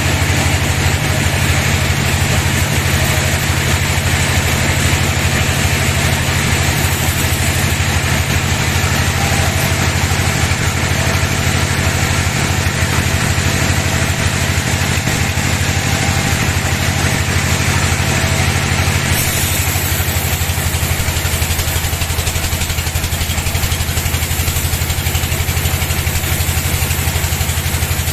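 Sawmill band saw machinery running steadily: a low, even engine hum under a broad hiss, the hiss changing about two-thirds of the way through.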